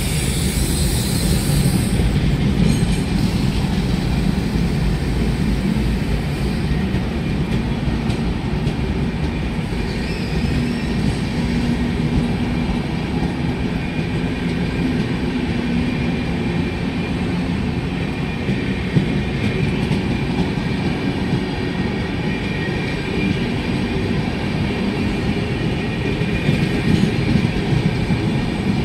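Shatabdi Express air-conditioned chair-car coaches rolling past as the train pulls into the station, a steady rumble of wheels on the rails.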